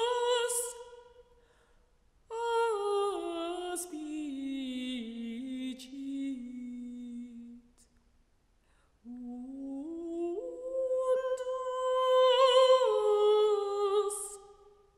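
A woman's voice singing slow, wordless sliding notes. A held note fades out in the first second or so. Then a long note glides down about an octave, there is a short silence, and a note climbs back up and holds until near the end.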